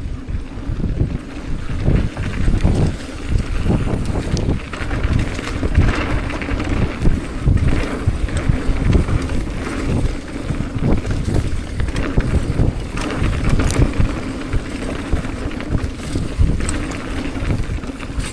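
Mountain bike descending a downhill trail: wind noise on the microphone over a continuous rumble of tyres on dirt, with frequent irregular knocks and rattles from the bike going over bumps.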